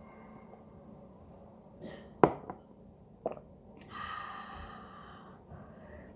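Two sharp clicks about a second apart, the first the loudest, then a person's breathy sigh lasting about a second and a half.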